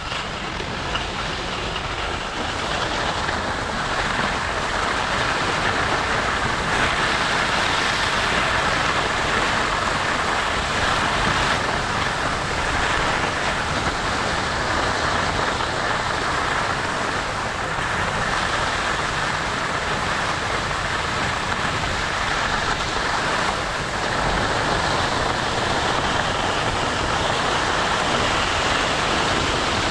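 Steady rushing of wind over the microphone with skis sliding and scraping on snow during a run down the slope, building over the first few seconds and then holding.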